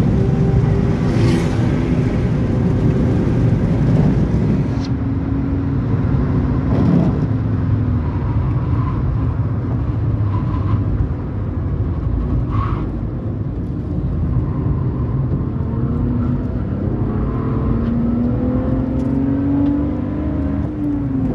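BMW 325ti E46's 2.5-litre straight-six pulling hard, heard from inside the cabin over tyre and wind noise. Its note climbs steadily through the second half and falls away right at the end.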